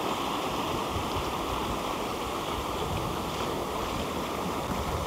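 Sea surf washing against the shore: a steady rushing noise without breaks.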